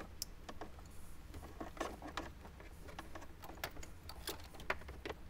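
Faint, scattered clicks and light rustles of plastic wiring-harness connectors and cables being handled and plugged together, over a low steady hum.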